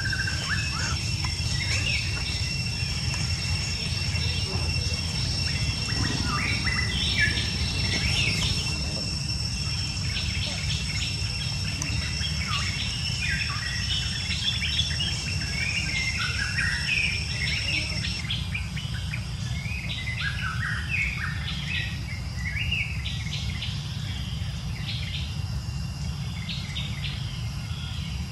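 Birds chirping with many short, scattered calls, over a steady high insect drone that cuts off about two-thirds of the way through. Underneath runs a steady low rumble.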